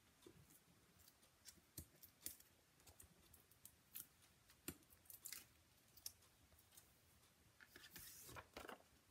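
Faint handling of paper and cardstock: scattered light clicks and taps as small paper pieces are pressed down onto a card, with a short paper rustle near the end.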